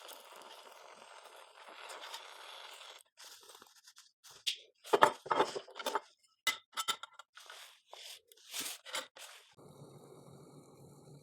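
Irregular scraping, crunching and clicking handling noises. About three quarters of the way through they give way to a steady hissing flow.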